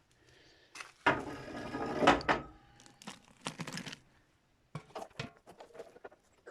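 A hand tool scraping across the floor for about a second and a half, followed by knocks and clatters as debris and tools are shifted about.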